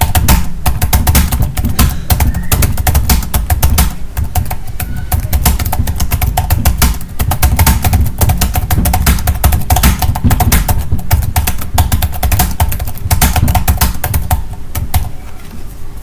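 Rapid typing on a computer keyboard at about 78 words a minute in a typing speed test: a dense, unbroken run of key clicks that thins out near the end.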